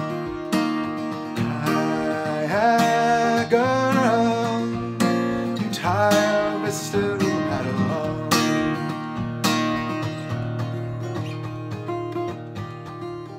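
Acoustic guitar strummed in a steady rhythm, with a man's voice singing a sliding line for a few seconds in the middle, then guitar alone near the end.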